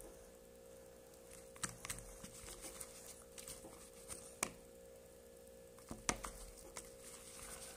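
Hands kneading and pressing homemade glue slime: a few scattered sticky clicks and squishes over a faint steady hum.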